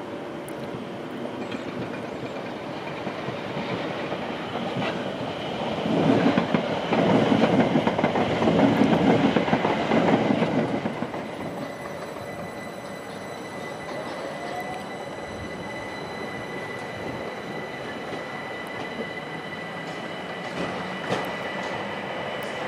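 An electric train passing, its wheels rumbling and clattering loudest from about six to eleven seconds in. After that a London Overground Class 378 electric multiple unit stands at the platform and pulls away, with a steady high electrical whine over quieter rail noise.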